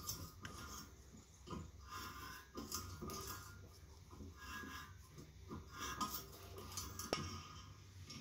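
Thread tap in a T-handle tap wrench being turned by hand into a drilled hole in a steel press frame: faint, irregular scraping of the tap cutting and small metallic clicks as the wrench is re-gripped, with one sharper click about seven seconds in.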